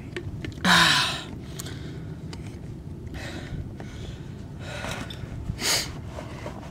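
A person's heavy breaths and gasps after gulping water, a loud one about a second in and a few softer ones later, over a steady low rumble of wind on the microphone.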